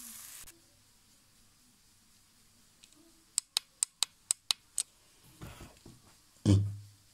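Frying sizzle from a pan, cut off abruptly half a second in. Then a quick run of seven sharp clicks, and near the end a single deep thump.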